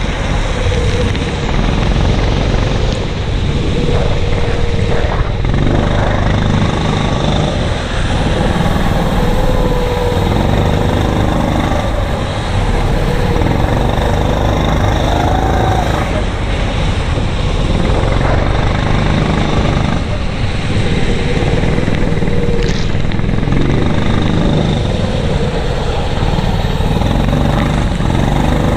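Racing kart engine heard on board, running hard with its note rising and falling again and again as the kart accelerates and lifts through the corners.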